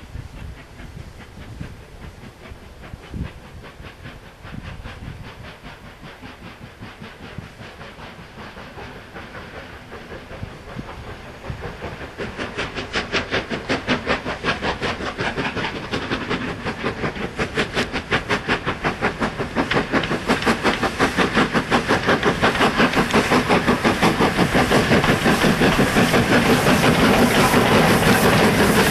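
GNR N2 class 0-6-2T steam tank locomotive working a goods train, its exhaust chuffing in quick, even beats that grow steadily louder as it draws near. For the first twelve seconds or so there is only a low rumble, and then the beats come in.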